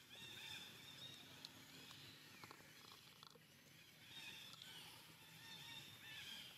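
Faint high-pitched animal calls with bending pitch, in a few short spells, over a quiet background.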